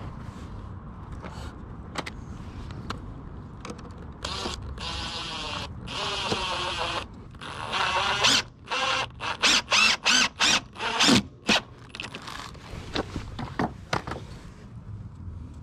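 Ryobi cordless impact driver driving a screw into a wooden fence frame. It runs steadily for about three seconds from four seconds in, then fires in a quick string of about ten short bursts as the screw is run home.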